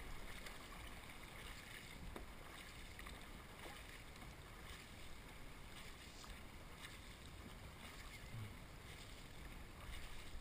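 Faint splashing of a dragon boat crew's paddles digging into the water, with water running along the hull.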